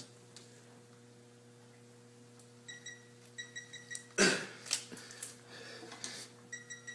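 Electronic beeping from a digital torque-angle gauge on a torque wrench, quick runs of short high beeps about three seconds in and again near the end, as the wrench is pulled through the 90-degree angle step on a Ford 6.0 diesel's ARP head studs. About four seconds in comes a sharp breathy grunt of effort, followed by a few smaller ones.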